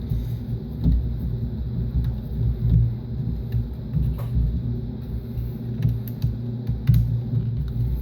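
Scattered light clicks and knocks of a heat gun's plastic housing and parts being handled during disassembly, over a steady low rumble and hum.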